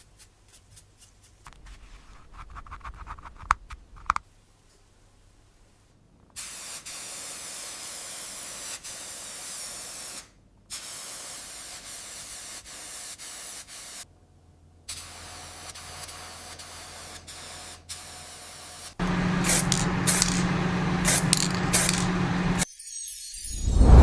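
Paint being sprayed in steady hissing passes of three to four seconds each, with brief pauses between them, after a few small clicks at the start. Near the end a louder, rougher spray with a low hum runs for a few seconds, then a falling whoosh.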